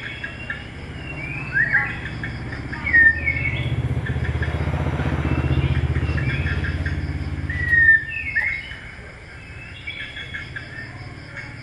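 A motorcycle engine passes by, a low running rumble that swells in the middle and dies away near the two-thirds mark. Small birds chirp on and off throughout.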